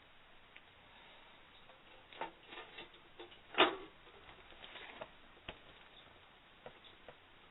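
Small clicks and taps of a plastic lamp being handled, with one sharp, louder click about halfway through.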